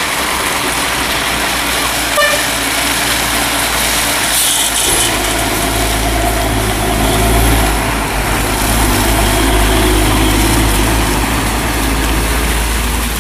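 Heavy diesel logging trucks loaded with timber passing slowly at close range on a dirt road, their engines running with a deep rumble that grows stronger about five seconds in as a truck comes closest. A short hiss sounds about four and a half seconds in.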